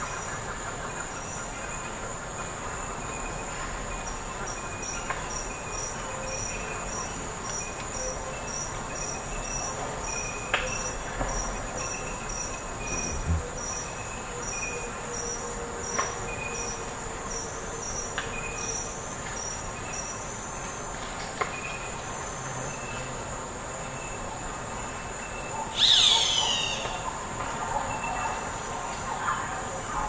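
Forest ambience: a steady high insect drone with evenly repeated chirps, and scattered bird calls. Late on, a bird sings a loud song that tumbles down in pitch, and a few sharp clicks like snapping twigs are scattered through.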